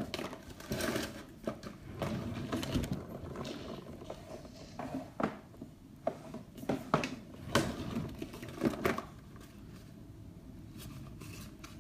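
Plastic and glass makeup bottles and containers knocked, clicked and shuffled while someone rummages through them for a foundation, an irregular run of small knocks that thins out after about nine seconds.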